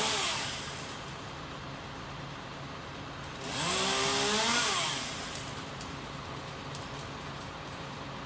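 Chainsaw revving twice: a high-revving burst at the start that dies away by about a second in, then a second burst rising and falling in pitch from about three and a half to five seconds in, with the engine running low in between.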